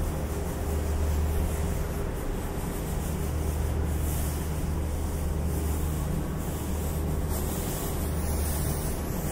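A steady low mechanical hum throughout, with footsteps scuffing on a snow-dusted, slushy walkway over it.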